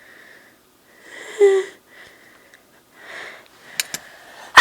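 A woman's breathy, gasping inhales building up to a sneeze, the loudest about one and a half seconds in with a rising voiced 'ah'. Two short clicks come near the end, and a loud sneeze breaks out at the very end.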